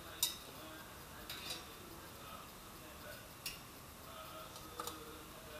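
Metal tongs clinking against an air fryer basket while chicken nuggets are turned: a few short sharp clicks, the loudest about a quarter second in.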